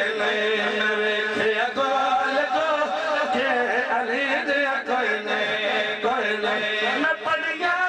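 A man's voice chanting a Punjabi devotional kalam in long melodic phrases, amplified over a loudspeaker system, with a steady low drone underneath that stops shortly before the end.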